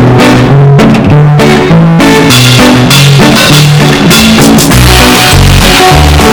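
Loud background music: plucked guitar over drums, with a heavy bass beat coming in about halfway through.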